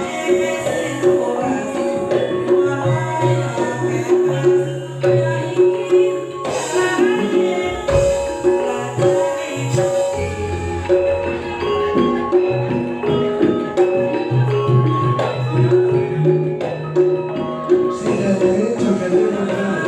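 Campursari band playing Javanese gamelan-style music: repeating pitched metallophone-like notes over a steady bass, with hand-drum percussion.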